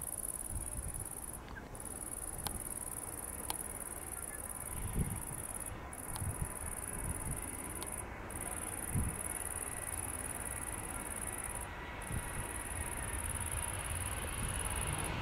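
An insect, a cricket or bush-cricket, keeping up a high, steady buzz in long stretches broken by brief pauses every few seconds, over a low rumble that starts to rise near the end.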